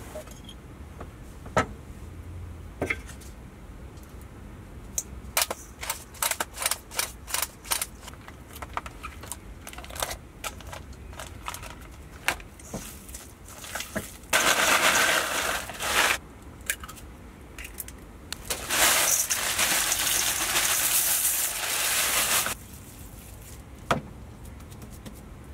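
Metal cookware clattering: a spatula and pan knocking and scraping against a stainless steel mixing bowl in a quick run of clicks. Then two loud stretches of crinkling packaging, a couple of seconds and then about four seconds, as ground beef is unwrapped, and a single knock near the end.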